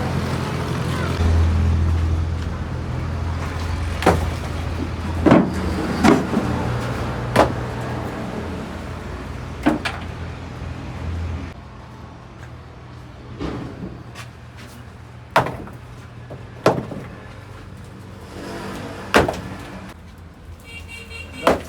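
A low steady engine or machine hum, strong at first and fading about halfway. Over it come irregular sharp knocks, about nine of them, each a single hard impact a second or more apart.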